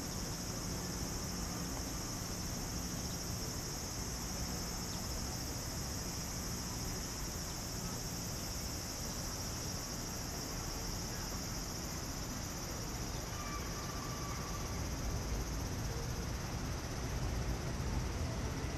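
Insects droning steadily in one high-pitched band, over a low background rumble.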